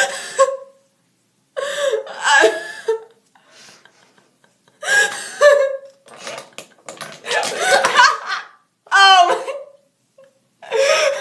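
A woman laughing in repeated bursts, with short pauses between them.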